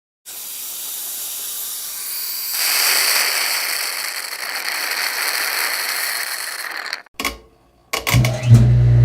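A steady hiss that grows louder about two and a half seconds in and stops sharply near seven seconds. It is followed by a couple of brief clicks, and a loud low-pitched hum starts near the end.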